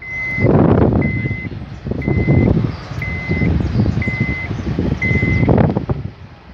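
Electronic warning beeper sounding six even beeps of one pitch, about one a second, each about half a second long, over low wind noise on the microphone while the car moves.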